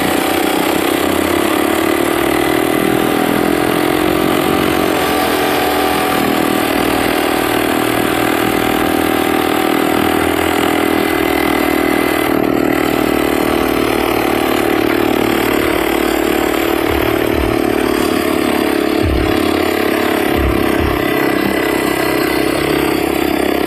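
49cc two-stroke pocket bike engine, fitted with a Honda XRM110 carburetor, running under a rider at a fairly steady pitch.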